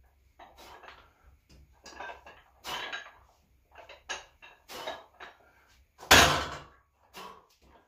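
Iron plates on plate-loaded dumbbells clinking and knocking as the dumbbells are swung through curls. About six seconds in there is a loud metallic clank as they are set down.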